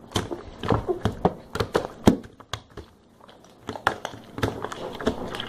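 Slime being stirred and worked by hand, giving irregular wet clicks and small pops, with a short lull about halfway through.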